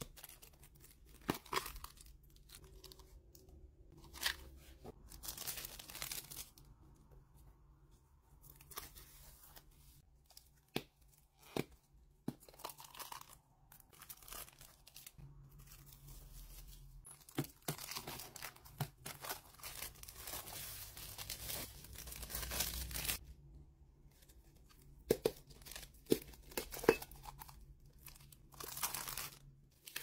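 Clear plastic wrap being peeled and torn off glass food containers, crinkling in several long stretches, with sharp clicks and knocks from the snap-lock plastic lids and the glass between them.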